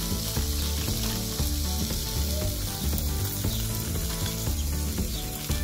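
Lettuce leaves being torn apart by hand: a steady crisp crackling and rustling, over background music with a steady beat.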